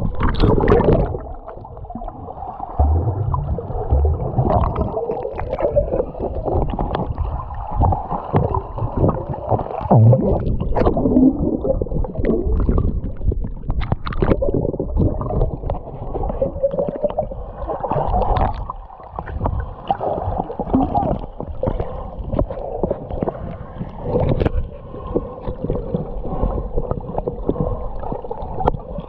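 Lake water sloshing and gurgling around a camera held half in and half under the surface, muffled as if heard through a waterproof housing, with frequent small knocks and splashes.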